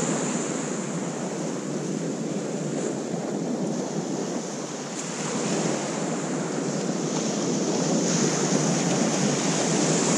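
Surf breaking and washing up a shingle beach, a steady hiss that eases a little and swells again about halfway through, with wind on the microphone.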